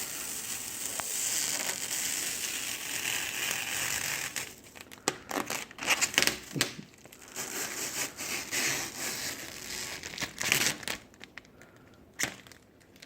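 Protective plastic film being peeled slowly off a surface: a steady tearing hiss for about four seconds, then irregular crackles and crinkles.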